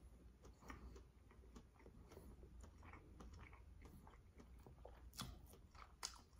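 Faint chewing of a mouthful of fried rice: soft, scattered mouth clicks, with a couple of slightly louder clicks near the end.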